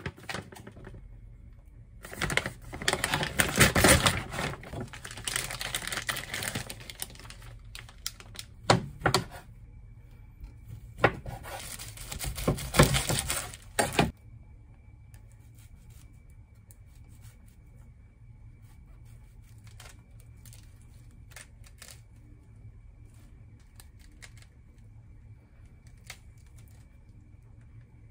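Kitchen knife cutting food on a wooden cutting board: runs of quick strokes and scrapes over the first half. After that only sparse soft handling sounds as enoki mushrooms are pulled apart by hand, over a faint steady high whine.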